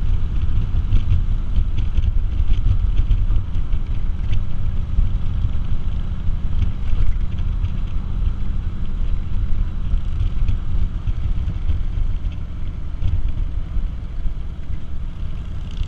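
Harley-Davidson motorcycle running steadily at road speed, heard from the rider's seat, with wind rush over the microphone.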